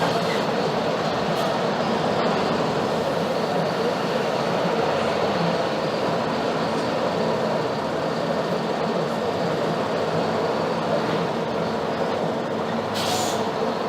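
Mercedes-Benz OF-1721 BlueTec 5 bus running steadily, its diesel engine and road noise heard from inside the bus. A short hiss comes near the end.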